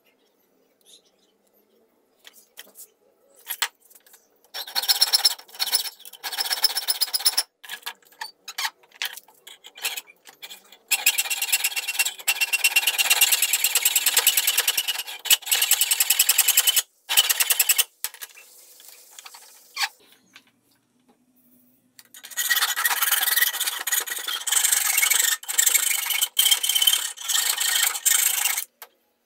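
Rasping scrape of an abrasive worked by hand against a rusty steel part clamped in a bench vise, in three long spells of rapid strokes with shorter strokes between. A faint steady hum sits underneath.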